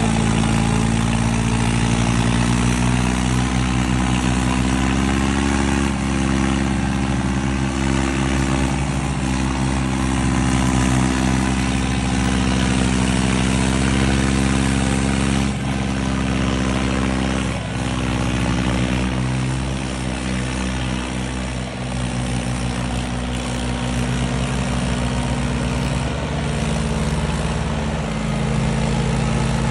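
John Deere farm tractor's diesel engine held at high revs, running steadily with small changes in pitch, while its rear tyres spin in place in a burnout, with a hiss of tyre scrub over the engine.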